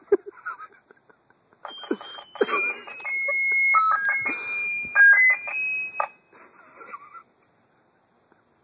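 Electronic beeps from a handheld noisemaker. A few clicks come first, then from about a second and a half in, a run of steady tones hops between several pitches for about four and a half seconds before stopping.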